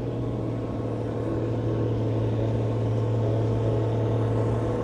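Diesel tractor engine running steadily with a low, even drone, the pulling tractor standing at the start before its run.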